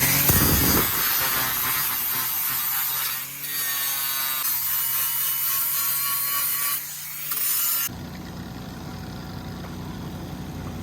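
Grinder working aluminum, cleaning up old welds and oxidation on a trailer's taillight housing to prep it for welding. The grinding dips briefly twice and stops about eight seconds in, leaving a low engine hum.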